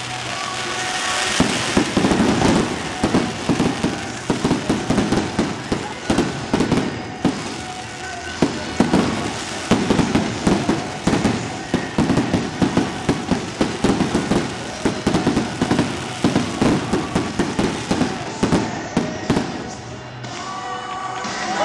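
Fireworks going off in a fast, continuous string of bangs and crackles, several a second, thinning out a little near the end.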